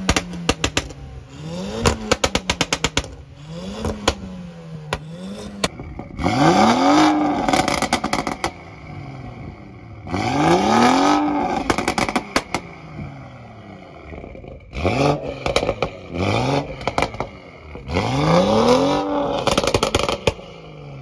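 Car engine revved again and again, light blips at first and then about five sharp high revs, with rapid trains of exhaust pops and crackles as the throttle snaps shut after each.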